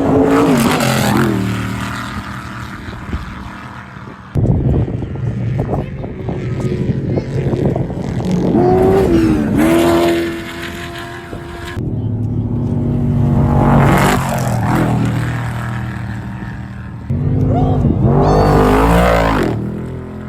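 Off-road desert race vehicles going by one after another at full throttle. Their engines rev up and fall away in pitch as each one passes, with abrupt cuts between passes.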